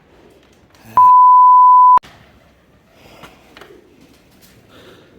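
A censor bleep: one steady, high-pitched pure tone lasting about a second, starting about a second in, with all other sound cut out beneath it.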